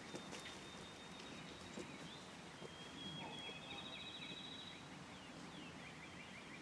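Faint songbirds singing: a run of short repeated chirps, with a high trill about three seconds in.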